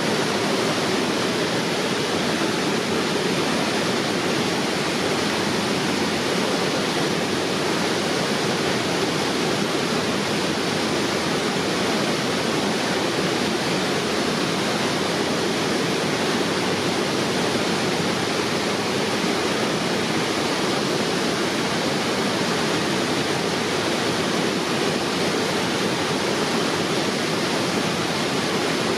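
Waterfall on a river: a steady, even rush of falling water with no breaks or changes.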